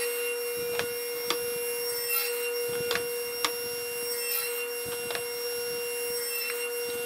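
Table saw running free at full speed with a steady whine; the blade is spinning but not cutting. A few light clicks and knocks sound as the board is set against the crosscut sled.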